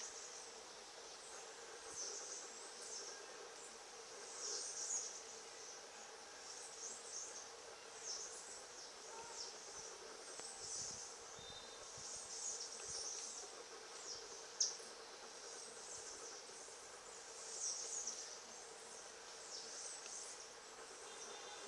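Insects chirping in short, high, buzzy bursts that come and go irregularly, over a faint steady hum. One sharp click about two-thirds of the way through.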